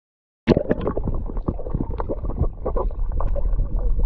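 Muffled underwater sound from a submerged camera: gurgling, many small clicks and knocks from moving water and bubbles, and a low rumble. It starts suddenly about half a second in, after a brief silence.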